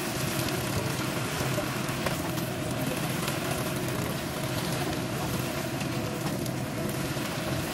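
Wet spinach leaves sizzling in a hot frying pan as they are stirred and tossed with a wooden spatula, with light scraping and a steady low hum underneath.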